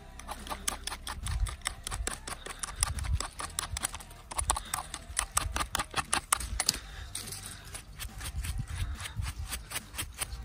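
Curved knife blade scraping soil off the stem and cap of a freshly picked porcini mushroom (Boletus edulis), in quick repeated strokes, several a second.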